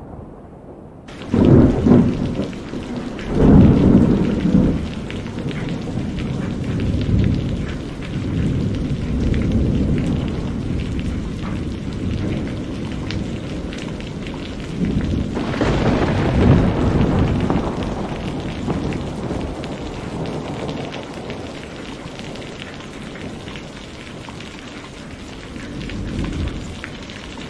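Steady rain hiss that sets in about a second in, with rolls of thunder: two strong peals in the first few seconds, another about halfway through, and a weaker one near the end.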